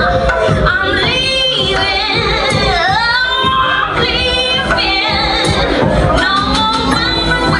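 A woman singing R&B live over a backing track with a beat, her voice sliding up and down through long runs.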